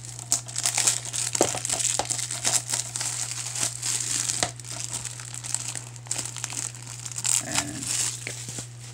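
Clear plastic shrink wrap being torn and peeled off a DVD case, with continuous crinkling and crackling and small sharp snaps, over a steady low hum.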